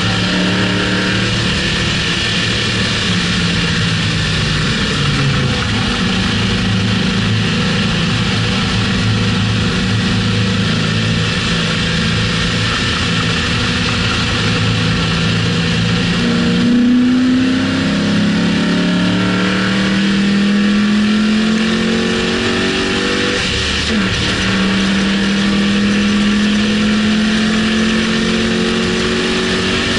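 2006 Mustang GT's 4.6-litre V8 at track speed, holding steady revs through a turn and then pulling hard with the pitch climbing. It shifts up twice, a little past halfway and about three quarters in. Loud wind and road rush sit over it.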